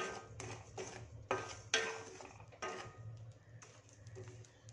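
Wooden spatula scraping and knocking in a stainless steel kadai while stirring chickpeas through hot salt, the metal pan ringing briefly after each stroke. The strokes come about every half second for the first three seconds, then give way to fainter scattered clicks.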